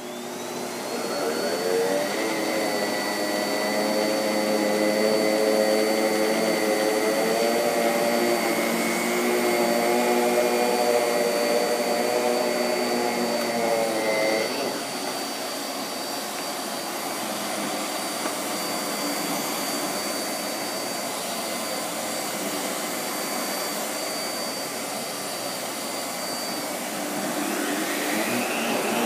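Miele S7 Cat and Dog upright vacuum cleaner switched on, its motor spinning up in a rising whine and settling into steady running with a high-pitched tone, vacuuming across a mat and a wooden floor. About halfway through the lower hum drops away, and near the end a rising tone comes back.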